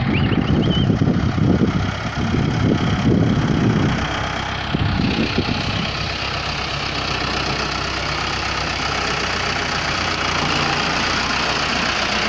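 Mahindra Arjun 555 DI tractor's diesel engine running as it pulls a trailer heavily loaded with sugarcane. It is louder and rougher for the first few seconds, then settles into a steady run.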